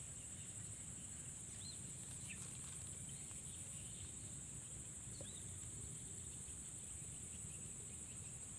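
Steady high-pitched drone of insects in swampy grassland, with a short bird chirp twice.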